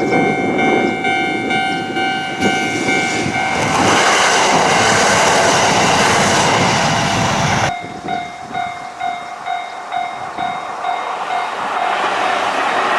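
Japanese railroad crossing warning bell ringing in a steady repeating beat, then a Shinkansen train rushing loudly past the crossing. The rush cuts off suddenly about eight seconds in, and a crossing bell is heard ringing again on its own.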